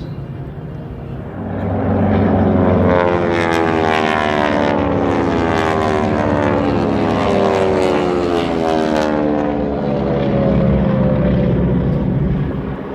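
Propeller airplane flying past, its engine note swelling about a second and a half in and then falling steadily in pitch as it passes. Another engine note starts to build near the end.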